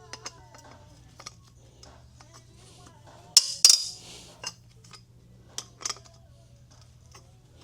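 Metal tools and engine parts clinking and clanking during an engine teardown. There are scattered light clicks, two loud ringing metallic clanks in quick succession about three and a half seconds in, and a steady low hum underneath.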